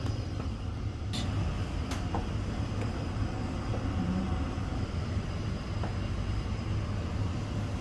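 Steady low rumble from the stove heating the steamer pot for the fish, with two light clicks about one and two seconds in.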